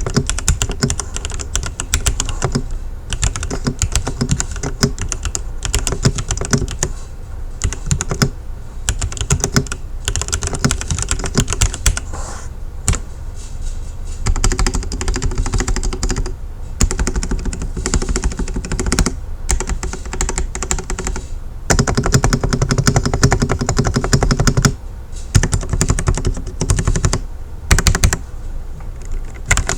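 Typing on a Lemokey X4 75% wired mechanical keyboard: quick runs of keystroke clacks with short pauses every few seconds.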